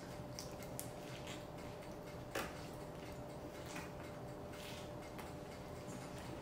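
A person chewing a mouthful of turkey club sandwich: soft mouth clicks and smacks, with one sharper click about two and a half seconds in, over a faint steady hum.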